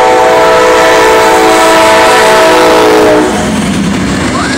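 Amtrak GE P42DC locomotive's air horn sounding one long, loud chord as it passes at close range, cutting off about three seconds in. After that comes the steady rumble and wheel noise of the passenger cars rolling by.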